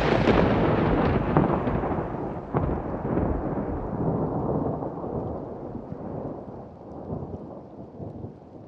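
Natural thunder: a loud, rolling rumble with a couple of sharper cracks in the first three seconds, slowly dying away toward the end.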